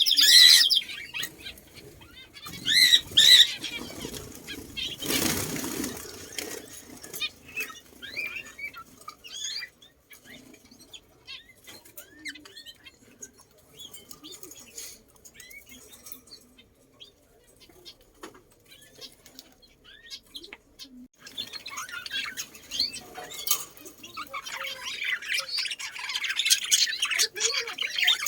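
Birds calling and chirping: a few loud, repeated squawky calls at the start, scattered faint chirps through the middle, and a busy chorus of chirping again near the end. About five seconds in comes a short whooshing flutter, like wings flapping.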